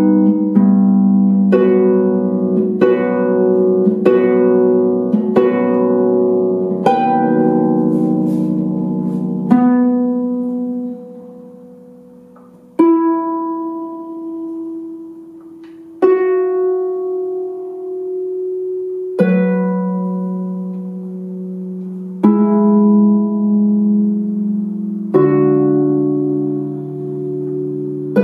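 Solo concert harp playing a slow piece. Plucked chords come about every second and a half at first, then sparser chords every few seconds, each left to ring and fade.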